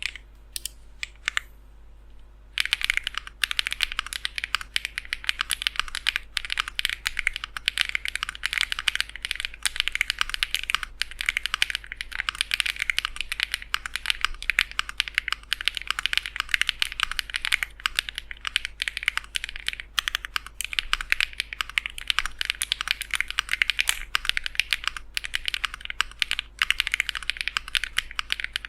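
Lucky65 mechanical keyboard with Matcha Buttermilk switches being typed on: a few single key presses, then from about two and a half seconds in, fast continuous typing, a dense stream of keystrokes.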